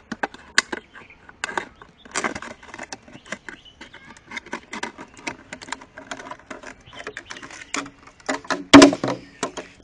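Plastic bottle being cut open: irregular crackling and snipping clicks of the plastic, with one loud knock about nine seconds in.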